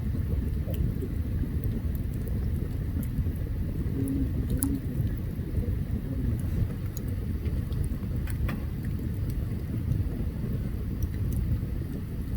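Open campfire burning, with scattered sharp crackles and pops over a steady low rumble; two louder pops stand out, one a little past a third of the way in and one about two-thirds through.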